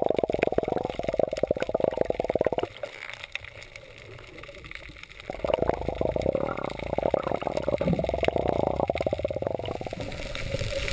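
Muffled underwater sound from a camera held below the surface: water sloshing and bubbling against it with a crackly rush. It fades for a couple of seconds about three seconds in, then comes back.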